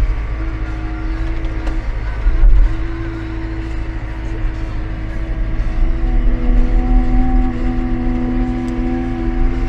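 A machine's engine running steadily, its pitch a little higher in the second half, with wind buffeting the microphone.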